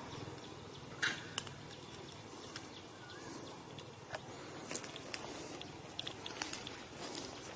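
Outdoor ambience: a steady hiss with scattered short clicks and rustles and a few brief high chirps, with one sharper click about a second in.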